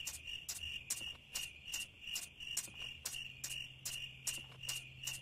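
Two pacifiers being sucked in time with each other, making sharp wet clicks at about two a second. Crickets chirp steadily in the background.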